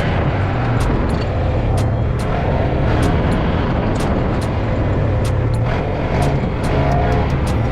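An ATV engine running steadily while riding, with frequent sharp knocks scattered through it.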